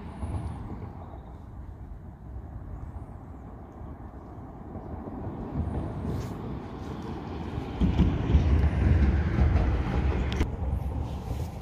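Road traffic on a highway bridge: a steady noise of passing vehicles that swells from about six seconds in, is loudest around eight to ten seconds, then eases off.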